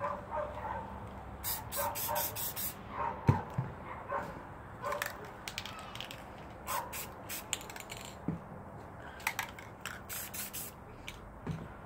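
Aerosol spray paint can hissing in a series of short bursts with pauses between them, with a few light knocks in the gaps.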